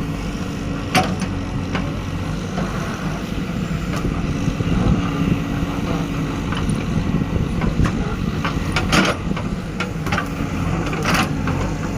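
Backhoe loader's diesel engine running steadily, with a few sharp knocks or clanks about a second in and again twice near the end.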